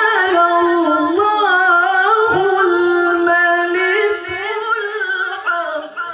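Male Qur'an reciter (qari) chanting through a microphone and PA, holding one long ornamented melodic phrase whose pitch wavers and turns, fading out near the end.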